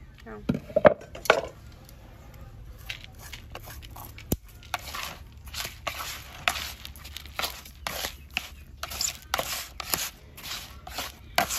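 Minced lemongrass tipped off a chopping board into a plastic basin of salted fish, with a few sharp knocks near the start, then chopsticks tossing the fish through the lemongrass in an irregular run of short scraping, rustling strokes.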